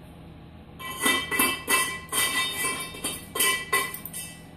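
Chisel chipping cutting dross off the inside edge of a steel bell cut from a CO2 tank: a quick run of sharp metallic strikes, about three a second, starting about a second in. Each strike sets the steel cylinder ringing.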